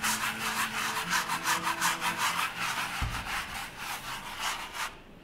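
Paintbrush scrubbing paint onto a painting in quick back-and-forth strokes, about four a second, stopping shortly before the end. A dull knock about three seconds in.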